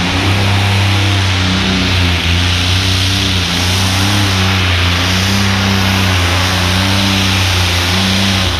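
Competition pulling tractor's engine running flat out under full load, loud and steady with small wavers in pitch.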